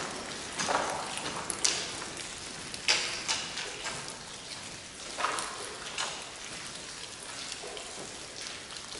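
Footsteps crunching on the loose gravel track bed of a brick railway tunnel, uneven steps that are loudest in the first few seconds and grow fainter.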